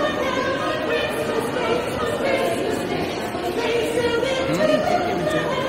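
A small vocal group singing unaccompanied in close harmony, holding long notes that shift in pitch from phrase to phrase.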